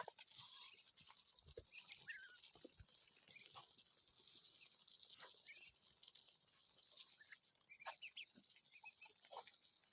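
Ducklings eating corn in a tight group: faint, scattered pecking and clicking of their bills, with a few short, soft peeps.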